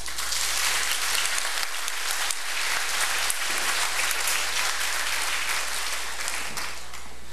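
Audience applauding: a steady round of clapping that eases slightly near the end.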